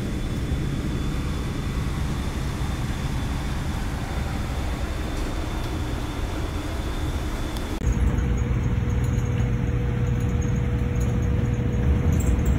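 Steady road and engine noise inside a moving vehicle. About eight seconds in it changes abruptly to a slightly louder rumble with a steady hum.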